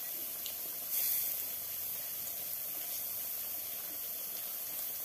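Bread-crumb-coated potato rings (aloo bread chops) frying in hot oil in a pan: a steady sizzle with a few faint pops, a little louder about a second in.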